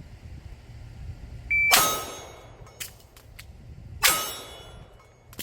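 A shot-timer beep, then a pistol shot with the steel target ringing. A few light clicks of a magazine change follow, and a second shot rings the steel about two seconds later, in a timed reload drill.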